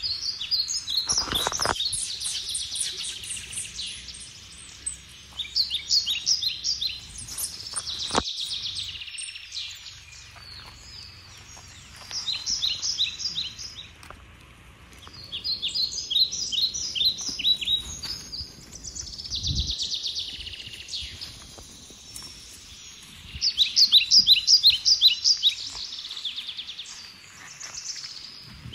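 Birds calling in bouts of rapid, high, evenly repeated chirps, each bout a few seconds long, coming again and again and loudest near the end. A few short knocks come in between.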